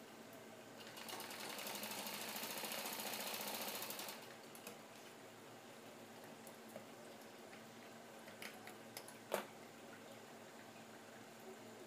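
Sewing machine stitching in one run of about three seconds that starts about a second in and then stops, followed by faint handling clicks and one sharper click.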